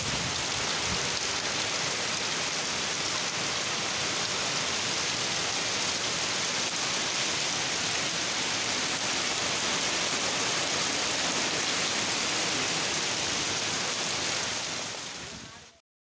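Heavy cyclone rain pouring down in a gale, a steady hiss that fades out near the end.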